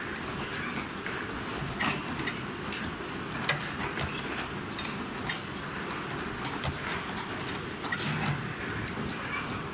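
Multi-slide CNC wire-forming machine running, with repeated sharp clacks every second or so as its tool slides strike and bend stainless steel wire into snaps, over a steady mechanical noise.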